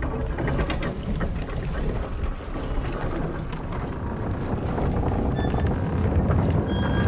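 Wind blowing steadily across an open beach, with a deep rumble beneath it, in a film sound mix.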